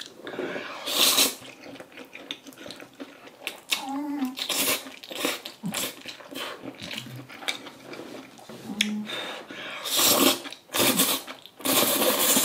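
Close-miked slurping of saucy black-bean-sauce instant noodles, in several noisy slurps: one about a second in, one around the middle, and a run of longer ones near the end. Between them are wet chewing and mouth clicks and a couple of short low hums.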